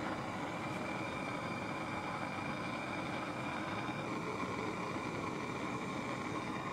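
Propane torch (Bernzomatic TS8000) burning steadily, heating a bent silverware piece to flow silver solder.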